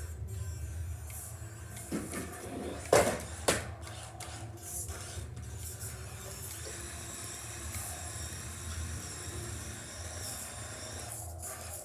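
Electric motor of a toy remote-control car whirring steadily, with a few sharp knocks around two to three and a half seconds in.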